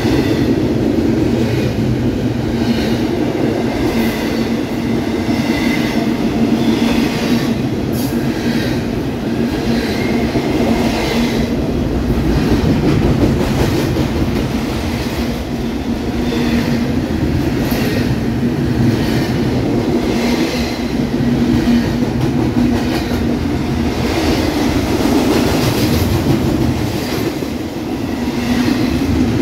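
Double-stack intermodal freight train's well cars rolling past at close range: a loud, steady rumble of steel wheels on rail, with scattered clicks as the wheels cross rail joints.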